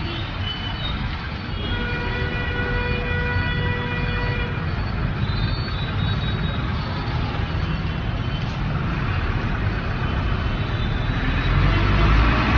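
Busy street traffic: vehicle engines running, with a vehicle horn held for about three seconds starting a second and a half in. A heavy engine rumble grows louder near the end as a van passes close.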